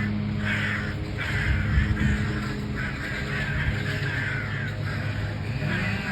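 A flock of hooded crows cawing loudly and repeatedly, many calls overlapping, as they mob a lone crow that is hiding at the foot of a tree.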